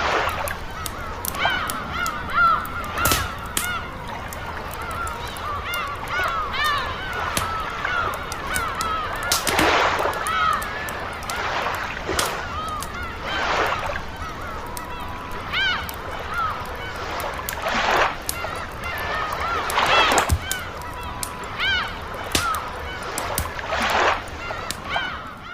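Seagulls calling over and over in short arched cries, over the sharp pops and crackle of a campfire. Waves wash in with a broad hiss every few seconds, the loudest near 10, 18 and 20 seconds in.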